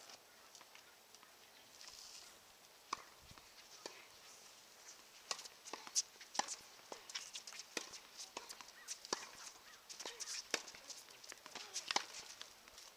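Faint, irregular taps and clicks, more frequent after about five seconds, with faint voices in the background.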